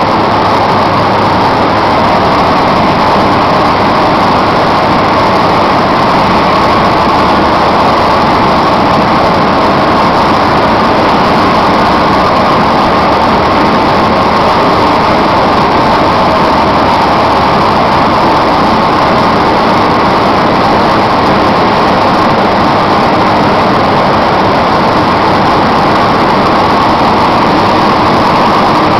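Coffee dryer running steadily: a loud, constant mechanical noise with a low hum underneath, unchanging throughout.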